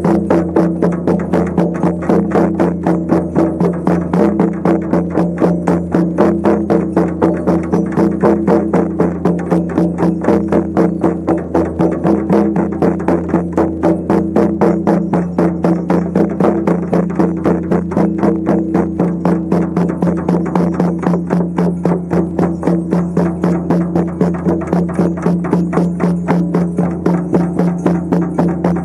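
Shamanic frame drums beaten in a steady, even rhythm, about three beats a second, over a steady low drone.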